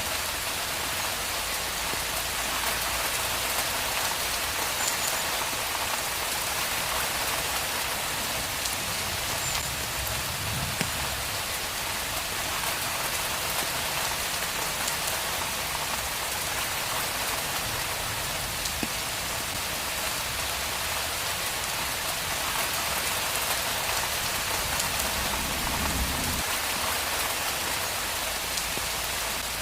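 Steady rain falling on a street: an even, continuous hiss of drops on the pavement. A faint low rumble swells and fades twice, about ten seconds in and again near the end.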